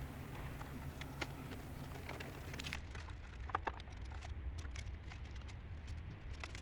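Faint scattered taps and clicks of cardboard being handled and cut for a patch template, over a low steady hum, with one sharper tick about three and a half seconds in.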